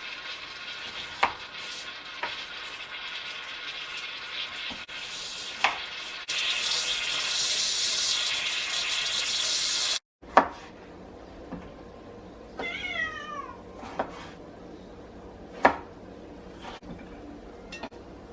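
A cat meows once, a short call that rises and then falls, about two-thirds of the way through. Before it there is a steady hiss that grows louder, broken by occasional sharp clicks and knocks of kitchen utensils, and the hiss cuts off abruptly.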